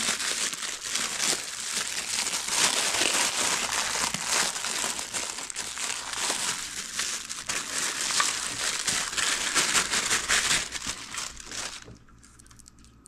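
Clear plastic packaging bags crinkling and crackling as they are pulled off chrome motorcycle passing lights. The handling is continuous and stops about a second before the end.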